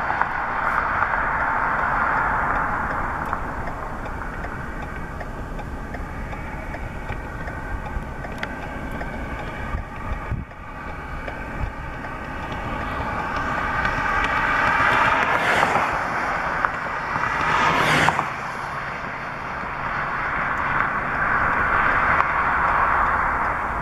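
Vehicles passing on a road: rushing tyre noise swells and fades three times over a steady low rumble. The middle pass, about two-thirds of the way in, is the longest and loudest, with an engine hum rising in pitch and two sharp hisses near its peak.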